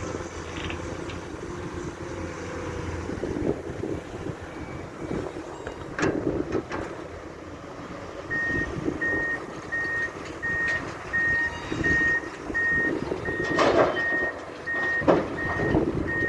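Diesel engine of heavy earthmoving machinery working, with several loud clanks and knocks. About eight seconds in, a reversing alarm starts beeping, a single steady tone about one and a half times a second.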